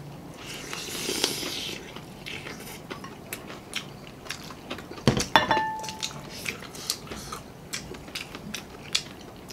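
Close-miked eating of sauced fried chicken: wet chewing and lip-smacking clicks throughout, with a hiss about a second in. About five seconds in comes a clink of glassware on the table with a short ringing tone.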